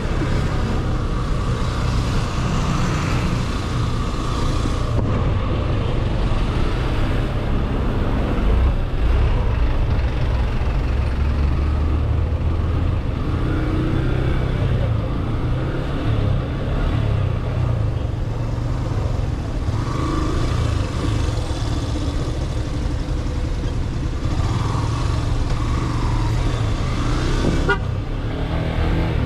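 Motorcycle engine running at low speed in stop-and-go traffic, with the low rumble of surrounding cars and a bus, and car horns honking now and then.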